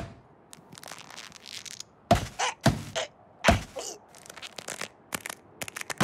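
Cartoon sound effects: a run of short, sharp knocks and thuds starting about two seconds in, some with a brief squeaky tone, then a few faint clicks near the end.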